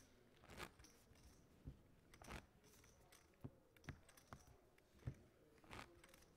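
Faint, irregular clicks and clacks of poker chips and cards being handled at the table.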